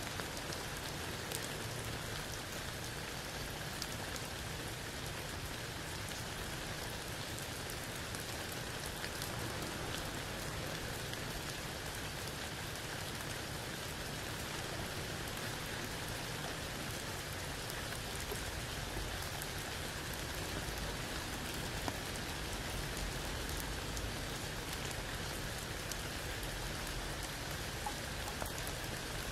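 Steady rain falling through a tree canopy onto leaves, wet ground and a puddle, with single drops ticking sharply here and there.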